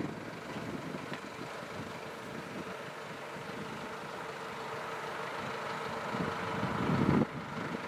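Solis 90 tractor's engine running as it pulls a Keenan diet feeder across the yard, gradually getting louder as it comes closer, with a steady whine throughout. The sound drops off suddenly shortly before the end.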